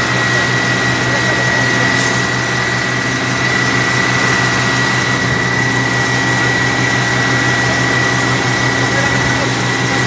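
Fire truck engine running steadily to drive its water pump while it sprays the burning wreckage: a low hum under a steady high-pitched whine and a constant rush of noise.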